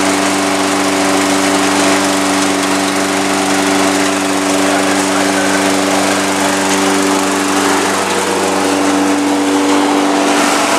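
Toro Recycler walk-behind mower's Briggs & Stratton single-cylinder engine running steadily at constant speed, just after starting. The engine runs in place with a garden hose feeding the deck washout port to flush clippings from under the deck.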